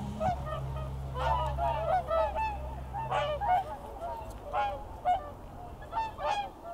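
A flock of swans calling: many short honking calls, overlapping in quick succession, thickest about a second in and again around three seconds in.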